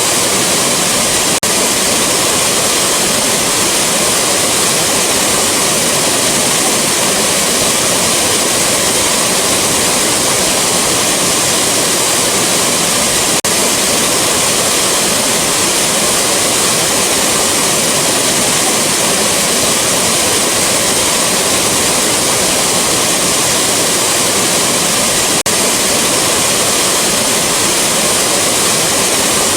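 Waterfall rushing: a loud, steady, unbroken roar of falling water with a strong hiss.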